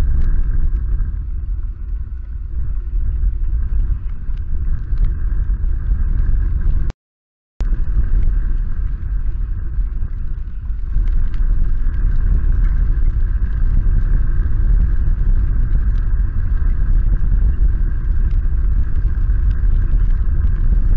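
Storm on an outdoor nest-cam microphone: wind buffeting the mic as a steady low rumble, with heavy rain and hail hitting in scattered sharp ticks. The sound cuts out completely for about half a second about seven seconds in.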